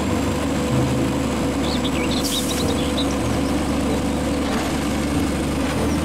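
Front-loader garbage truck's diesel engine running steadily while its hydraulic arms lift a dumpster overhead, with a brief hiss about two seconds in.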